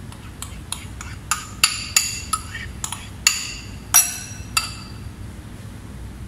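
A metal utensil clinking and tapping against a container, about ten ringing taps, as the last of the mayonnaise is scraped out for the tartar sauce. The taps stop about four and a half seconds in.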